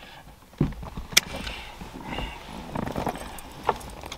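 Wire cutters snipping through stereo wiring with one sharp snip a little over a second in. Around it are the rustle and small clicks of wires and tools being handled, and a low bump just before the snip.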